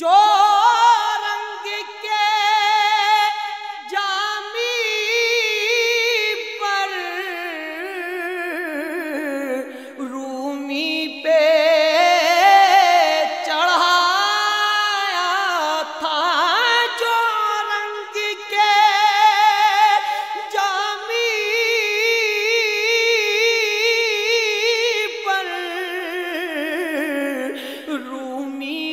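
Unaccompanied naat singing in Urdu: layered voices sing long, wavering melodic lines, with no drums or instruments.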